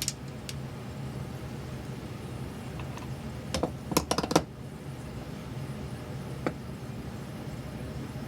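A steady low hum with scattered sharp clicks and light clinks: one at the start, another about half a second in, a quick run of several clicks around the middle, and a single click near the end.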